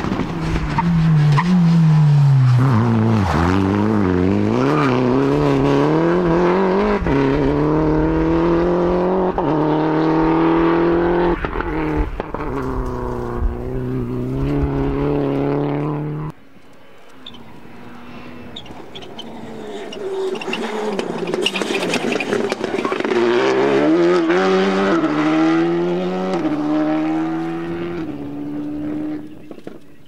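Rally car engines at full throttle. One car's revs climb and drop again and again through gear changes, then it cuts off abruptly. A second car is heard approaching and accelerating hard through several gear changes before fading away near the end.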